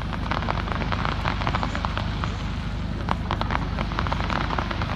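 Fireworks crackling overhead: a dense run of quick sharp pops from crackle-type shells, over a steady low rumble.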